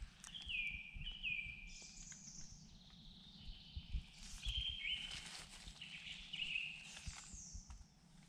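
Woodland birds singing: repeated short whistled phrases whose notes slide downward, with some higher notes between them. Soft low thumps sound underneath.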